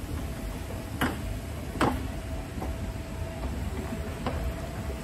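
Hitachi escalator running with a steady low rumble and a faint constant hum, broken by two sharp clicks about one and two seconds in.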